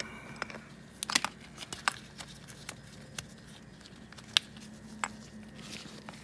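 Scattered light clicks and taps of a hand tool working the 13 mm negative battery terminal bolt as it is tightened, over a faint steady hum.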